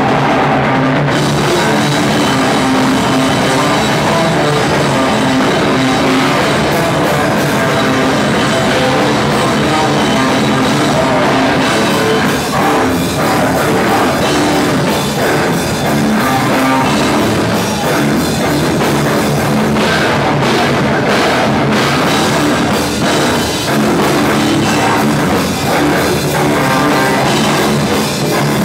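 Loud heavy rock played live by a band: drum kit and guitar, unbroken.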